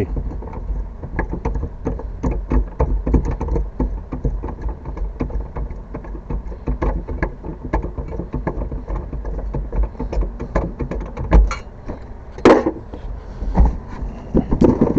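Irregular clicks and knocks over a steady low rumble, with two louder bumps near the end.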